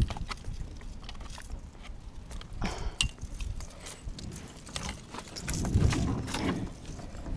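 Dry branches and twigs crackling and scraping with scattered clicks, and knocks against the plastic kayak hull, louder for a second or so about six seconds in.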